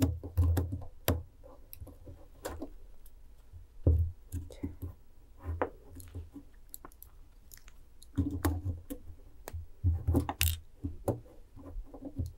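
Hand cutters snipping away in small bites: repeated sharp clicks and snaps of the blades, with dull knocks from handling the work in several clusters, near the start, about four seconds in and again around eight to ten seconds.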